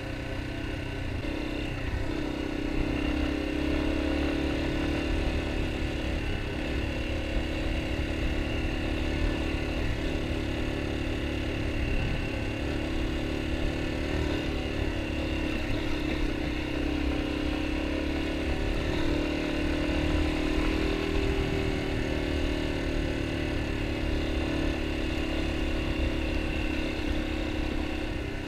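Yamaha XT250's air-cooled single-cylinder four-stroke engine running at a steady cruise on a dirt road. Its note wavers slightly with the throttle over a steady low rumble.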